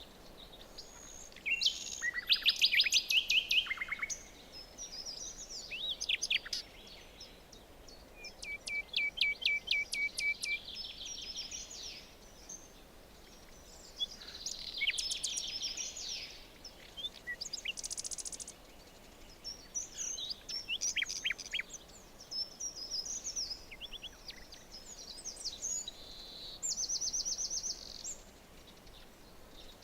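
Several birds singing, with bursts of fast repeated chirps and trills one after another, over a faint steady background hiss.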